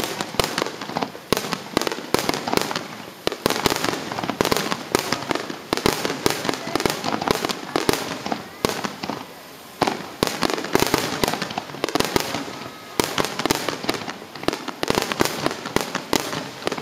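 Fireworks going off in a dense, rapid barrage of bangs and crackle, easing off briefly about nine seconds in before picking up again.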